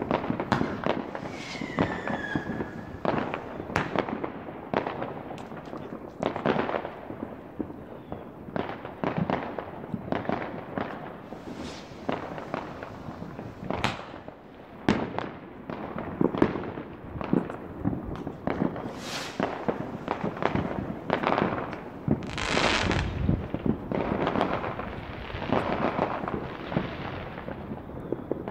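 Consumer fireworks going off around a residential street: an unbroken series of bangs and crackling bursts. A short falling whistle comes about two seconds in.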